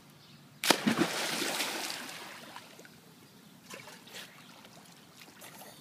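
A girl jumping into a swimming pool: one loud splash about half a second in, the spray and churned water dying away over about two seconds.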